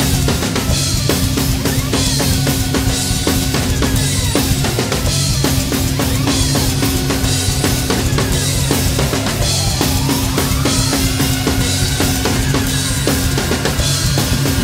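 Acoustic drum kit played fast over a heavy metal backing track: rapid bass drum strokes, snare hits and cymbal crashes that recur every couple of seconds.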